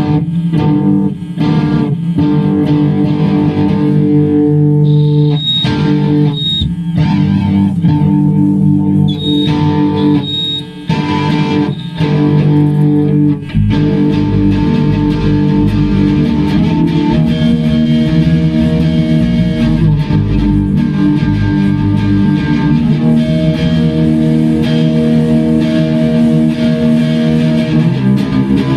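Instrumental music led by guitars, electric guitar over bass, with no singing; a heavier bass comes in about halfway through.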